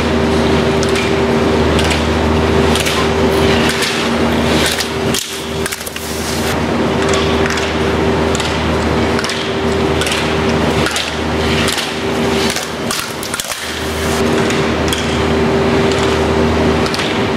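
Steady machinery hum of an indoor ski hall, fading out twice, with scattered sharp clacks of plastic slalom poles being struck by skiers running the gates.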